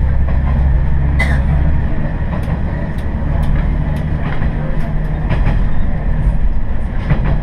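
Diesel railcar running, heard from on board: a heavy low engine hum that falls away about two seconds in, with scattered sharp clicks of the wheels over rail joints.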